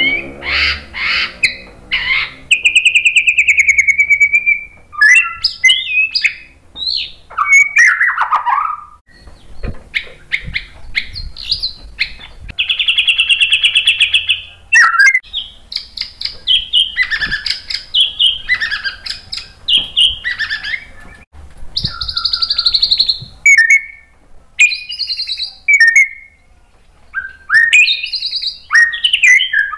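A male white-rumped shama sings a long, varied song in short phrases: clear whistles, rapid trills and harsh buzzy notes, with one long buzzy rattle about halfway through. The phrases include mimicked material ("isian").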